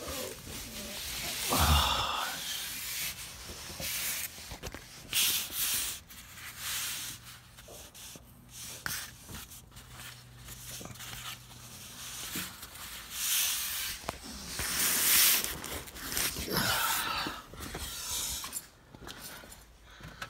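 A cloth rag rustling and rubbing close to the microphone in several irregular bursts of noise, with handling bumps in between.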